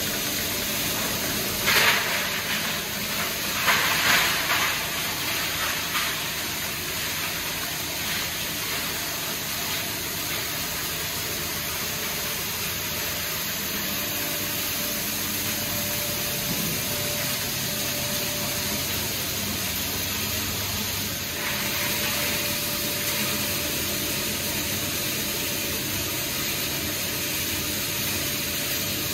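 Plastic granulating line running: a sound-insulated SHINI SG-4390 granulator grinding conveyor-fed plastic parts, with its air-conveying dust separator, heard as a steady rushing hiss. There are a few louder bursts in the first six seconds.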